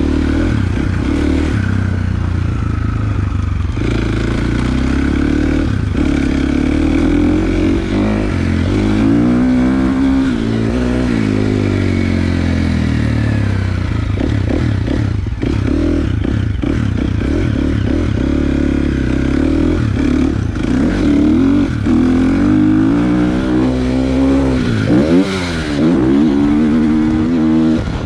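Motocross dirt bike engine heard up close from the rider's chest, revving up and falling back again and again as the rider accelerates and shuts off through the track, with scattered knocks and rattles from the bike.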